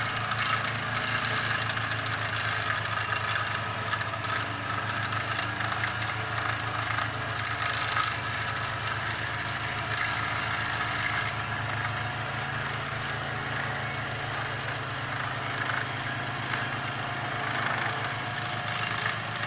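Vibratory pile driver (vibro sinker) shaking a Z-type steel sheet pile into the ground: a steady, fast-pulsing hum under a continuous metallic rattle. It eases off slightly after about twelve seconds.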